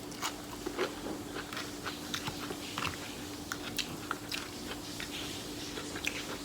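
Close-miked mouth sounds of a person eating: biting and chewing with small crunches and wet clicks, a quick irregular patter, over a steady faint hum.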